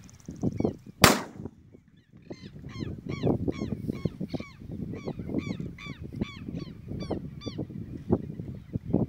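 A single shotgun shot about a second in, followed by a bird calling over and over, about three calls a second.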